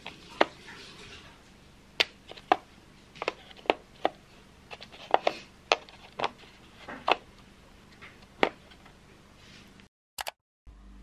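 Pentel oil pastel sticks being set back one by one into their plastic case tray: about a dozen light, sharp clicks and taps at irregular intervals, stopping about nine seconds in.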